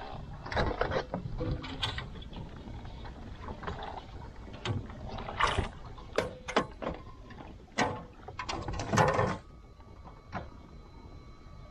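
Irregular knocks, clicks and rustles of gear and a bass being handled on a plastic fishing kayak, loudest about nine seconds in.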